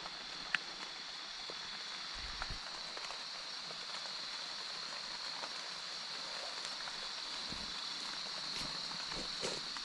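Night forest ambience: a steady high-pitched insect chorus over an even hiss, with a few faint scattered ticks.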